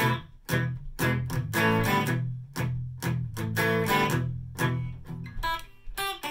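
Greg Bennett Avion AV-3 Les Paul-style electric guitar strumming chords with a pick in a steady rhythm, about two strums a second.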